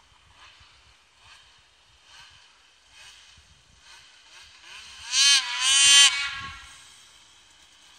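Two-stroke 800 snowmobile engine, stock except for a GGB mountain can silencer. It runs faintly at first, then revs hard about five seconds in, its pitch dipping and climbing again before falling away.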